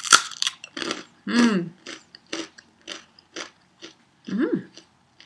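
A crisp fried rice cracker (shoyu-flavoured senbei) bitten with a loud crunch at the start, then chewed with crunches about twice a second, and two short closed-mouth hums between bites.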